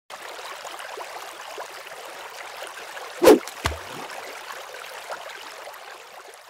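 Outro logo sound effect: a steady water-like rushing noise with a sharp, loud hit a little past three seconds in and a lower thump just after, fading out near the end.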